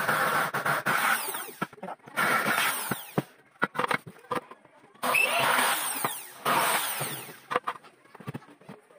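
Corded electric drill drilling holes into an aluminum window frame profile, in four runs of one to two seconds each, the motor whining up and winding down between them.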